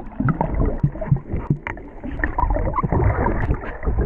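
Muffled churning and bubbling of seawater heard from a camera held under the surface, with irregular gurgles and almost no treble.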